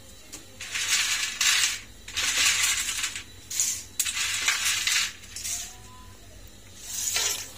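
Dry papads clattering and crunching as they are handled, in a series of short, brittle bursts before they go into the oil.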